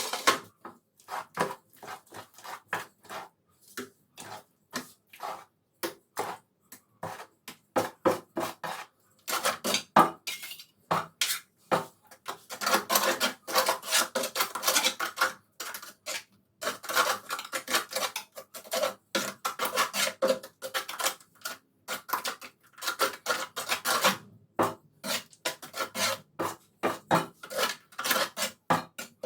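Hand tools scraping and tapping on ceramic tile, a run of short clinks and scrapes with longer stretches of steady scraping in the middle.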